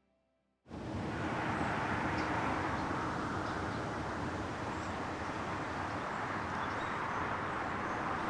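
Steady outdoor ambient noise that cuts in abruptly just under a second in, after a moment of near silence, with a few faint high chirps over it.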